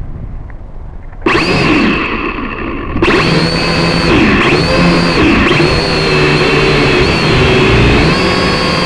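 Small quadcopter drone's electric motors and propellers, heard from the drone's own camera: they start suddenly about a second in, get louder about three seconds in as the drone lifts off, then run with a loud whine whose pitch wavers up and down with the throttle.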